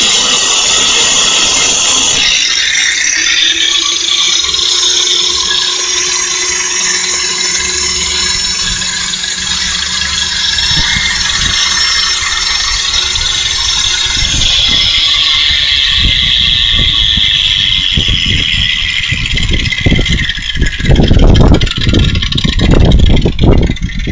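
Handheld 4.5-inch Chicago angle grinder grinding metal: a steady, loud high-pitched hiss of the disc on steel over the motor's whine. Loud low thumps come in over the last few seconds.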